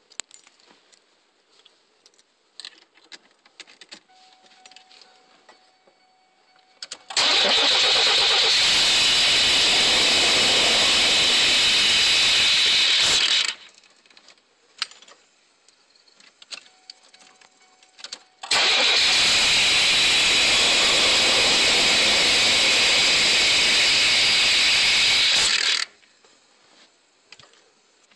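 Two attempts to start a 1990 Chevrolet Astro van's engine, each a loud, steady run of six to seven seconds that cuts off abruptly. The engine starts and then shuts off, a fault the owner links to his rebuilt throttle body and new injectors.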